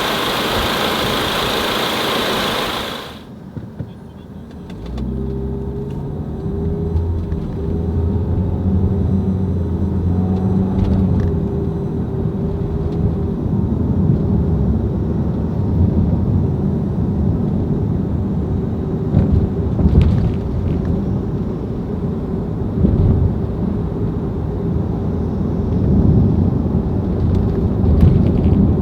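A steady hiss for the first three seconds, then a car engine starts about five seconds in and keeps running with a low hum, rising a little at times. The car is a 2016 Ford Explorer with a freshly repaired six-speed automatic transmission.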